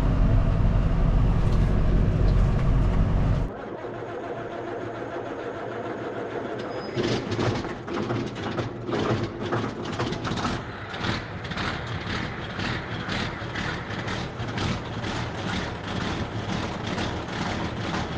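Engine running steadily with a heavy low rumble. About three and a half seconds in the rumble drops away suddenly to a quieter running sound, and a few seconds later a regular pulsing of about two to three beats a second sets in.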